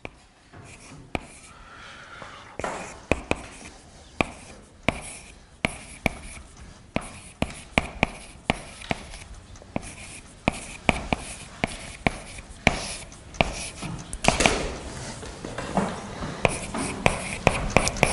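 Chalk writing on a blackboard: sharp taps as the chalk strikes the board, about one or two a second, with scratchy strokes between them that get louder in the last few seconds.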